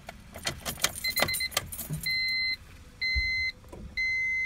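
Keys jangling and clicking in a Honda Civic's ignition as it is switched on, then the car's dashboard warning chime beeping about once a second, each beep about half a second long.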